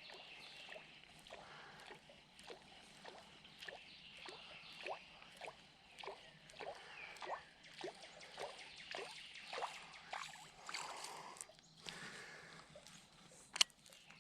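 Topwater lure being worked across a pond's surface: a steady run of small splashes, nearly two a second, then a single sharp click near the end.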